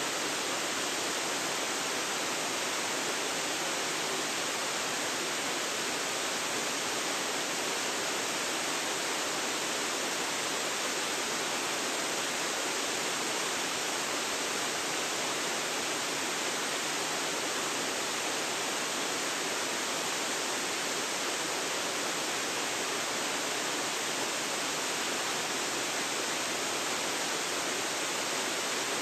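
Waterfall rushing steadily: an even, unbroken sound of falling water that does not change.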